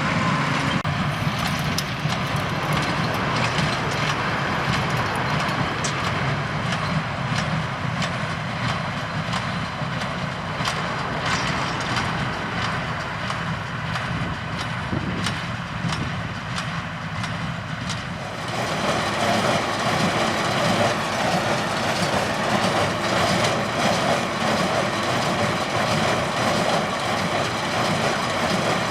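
Tractor and hay baler working, the engine running steadily under the clatter and repeated knocks of the baler's mechanism. The sound grows louder and brighter about eighteen seconds in.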